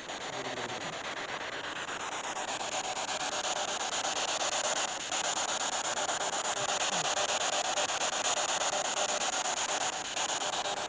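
Spirit box sweeping through radio stations: a steady hiss of static, chopped into a fast, even flutter by the scan.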